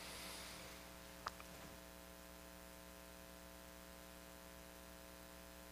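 Near silence: a steady low electrical hum with faint hiss, broken by one faint click a little over a second in.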